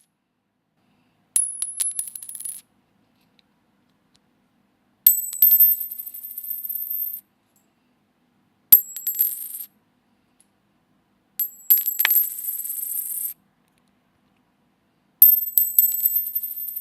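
A metal coin dropped on a hard surface five times in a row, each drop a sharp clink followed by a high ringing and a quick rattle of small bounces that dies away over a second or two. The drops come about every three to four seconds with silence between them.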